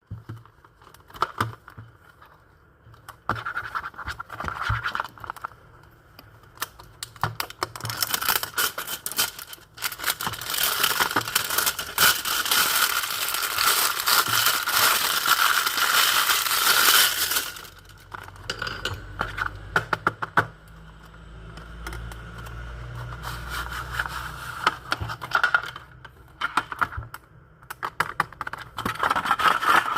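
Earphone packaging being handled and opened: scratching and scraping of packaging with scattered clicks, and a sustained rough scraping for several seconds in the middle.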